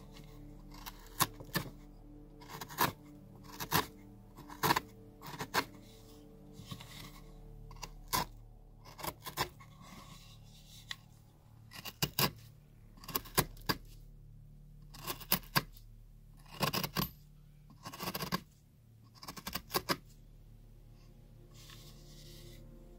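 Carving knife cutting into cottonwood bark: a series of short, sharp slicing cuts and chips cracking off, irregularly spaced. The cuts thin out for a few seconds in the middle and stop near the end.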